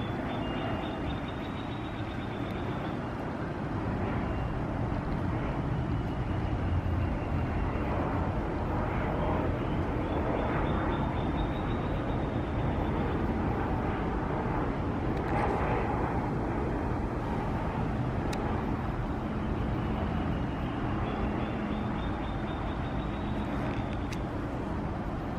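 Steady outdoor background rumble and hiss, like distant traffic, with a few faint high thin tones drifting over it.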